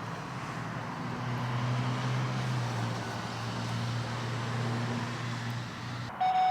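A motor vehicle's engine running with a steady low hum that swells about a second in, eases off, and stops shortly before the end. A brief electronic beep follows.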